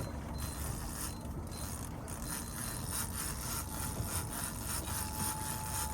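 Fishing reel being cranked, a fast, even clicking of its gears, over a steady low hum.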